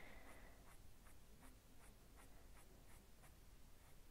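Soft-core Prismacolor coloured pencil (Henna) scratching faintly on paper in quick short shading strokes, about four or five a second.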